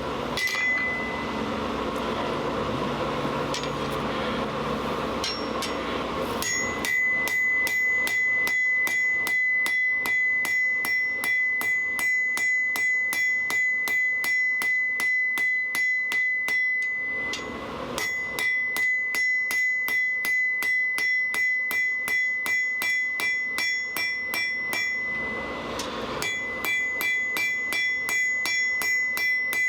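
Blacksmith's hammer striking hot steel on an anvil in a quick, even rhythm, each blow leaving the anvil ringing at a steady high pitch; the hammering stops twice briefly and resumes. Before the hammering starts, about six seconds of steady rushing noise.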